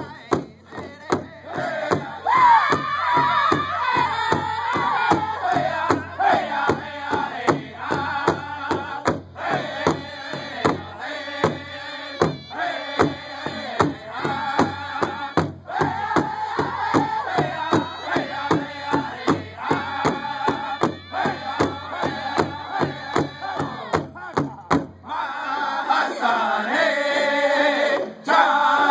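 Powwow drum group singing in unison around a large shared hand drum, the singers striking it together in a steady beat. About 25 seconds in the drumming stops while the voices carry on unaccompanied.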